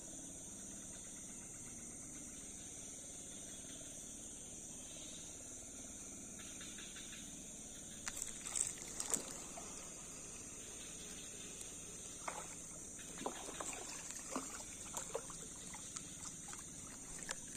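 Small irregular water splashes and ticks at the surface of swamp water, starting about eight seconds in, as a fishing lure is worked through the water, over a steady high insect drone.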